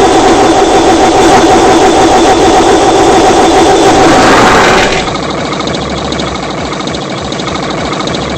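Very loud, distorted fart sound effect, a long rough buzzing rattle that cuts off suddenly about five seconds in. A quieter rattling continues after it until near the end.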